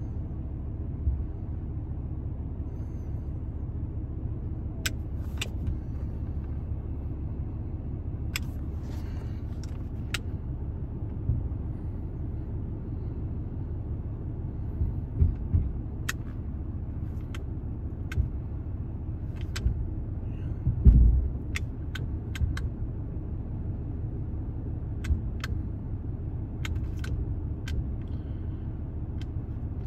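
A 6.7 Cummins diesel idles inside the cab as a steady low rumble, while the truck's hydraulic wheel lift is worked from inside. Sharp clicks come in scattered clusters, and a few low thumps land near the middle.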